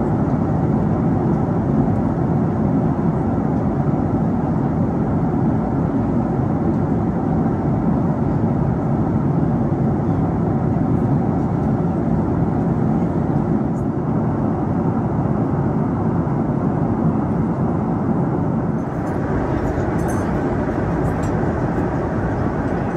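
Steady cabin noise of a Boeing 747-8 in cruise: an even, low roar of airflow and engines heard from inside the cabin. A few faint clicks come near the end.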